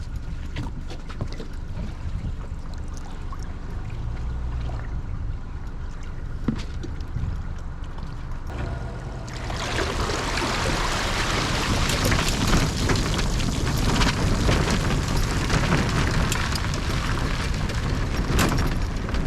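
A steady low motor hum. About nine seconds in, a loud, even rushing noise comes in abruptly over it and continues.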